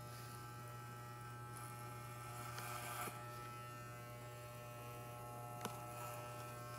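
Corded electric hair clippers buzzing steadily as they cut hair, with two faint clicks.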